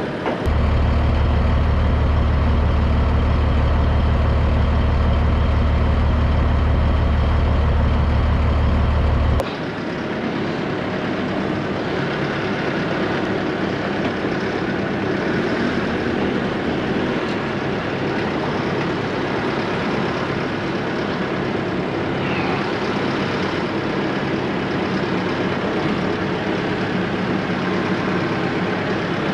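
Diesel engine running steadily. A loud low hum for about the first nine seconds cuts off abruptly, leaving a quieter, steady engine idle for the rest.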